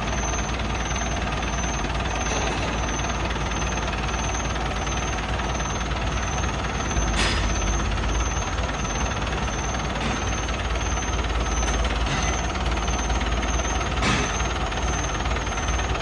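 Diesel engine running steadily with a heavy rumble and rattle, a little louder from about halfway through, with two sharp knocks.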